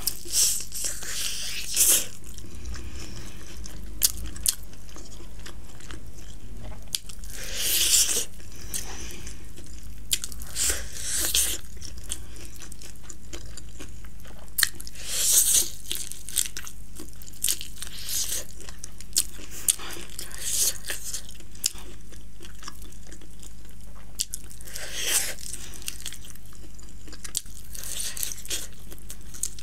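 Close-up bites and chewing of a spicy chicken drumstick, with crunches every few seconds as the coating and meat are bitten through and stripped from the bone.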